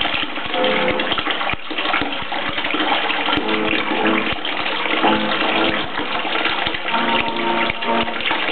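Water running through an aquaponics U siphon: a steady splashing pour from the pipe outlets into the grow-bed tub and the sump basin below, with short pitched gurgling tones coming and going.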